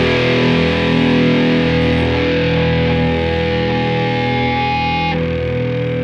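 Distorted electric guitar holding a ringing chord with feedback at the close of a punk song, no drums, slowly fading. A high held tone cuts off about five seconds in.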